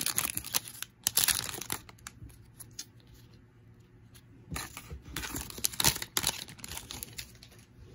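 Foil wrapper of a trading card pack being torn and crinkled, in two spells: over the first couple of seconds and again about halfway through, with quieter handling of the card stack in between.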